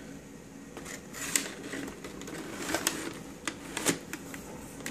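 Handling noise from a figure's boxed packaging being turned in the hands: light rustling with a few sharp clicks and taps, the clearest about a second and a half in, near three seconds and near four seconds.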